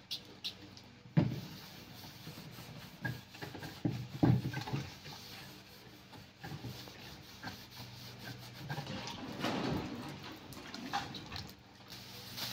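A sponge scrubbing a plastic patio table, with several knocks on the tabletop, the loudest about four seconds in. Near the end a plastic tablecloth rustles as it is shaken out. A steady low hum runs underneath.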